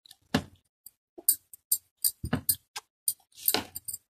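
Steel spoon clicking and scraping against a bowl while stirring dry gram flour, a dozen or so short, irregular clicks.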